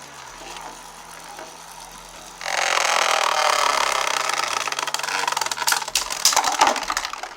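Beyblade Burst spinning tops launched into a plastic stadium about two seconds in, whirring and scraping as they spin, with several sharp clashes near the end.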